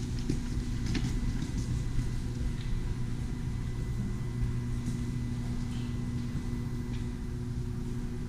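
Steady low machinery hum of ventilation filling a large hangar bay, with a few footsteps in about the first second.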